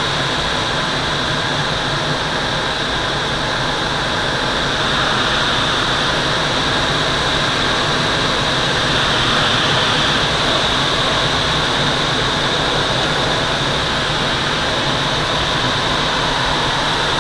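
Air rushing steadily past the canopy and airframe of a Twin Astir glider in flight, heard from inside the cockpit, swelling a little about halfway through.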